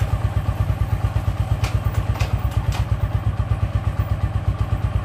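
Keeway Cafe Racer 152's single-cylinder four-stroke engine idling steadily, its exhaust note pulsing at an even, rapid rhythm. A few light clicks sound over it about two seconds in.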